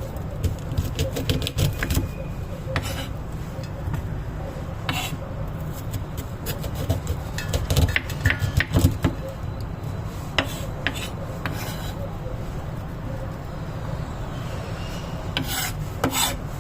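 Kitchen food preparation: repeated rasping, scraping strokes with scattered clicks and knocks, busiest about eight to nine seconds in, over a steady low hum.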